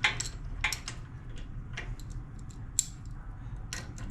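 Irregular small metallic clicks and taps from hand tools and a new spark plug being fitted into a small engine's cylinder head, over a low steady hum.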